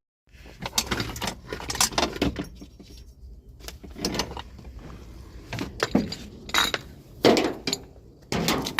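Irregular metallic clinks, knocks and scraping of a metal AC refrigerant line being pulled out through the van's engine bay, knocking against brackets and body metal.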